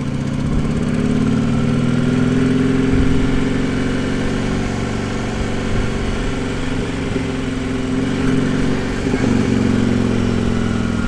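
Harley-Davidson motorcycle engine running steadily under way, heard through a helmet-mounted lavalier mic; its pitch drifts up and then eases off slightly, with a brief dip late on.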